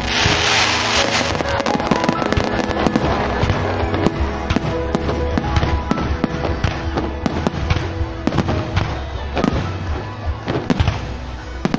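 Aerial fireworks bursting about 100 m away: a loud burst at the start, then a rapid run of crackling pops from glittering crackle stars. Music plays underneath throughout.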